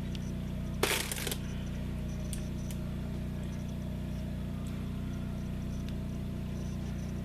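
Power washer running steadily in the background, a constant low drone. A short hissing rustle comes about a second in.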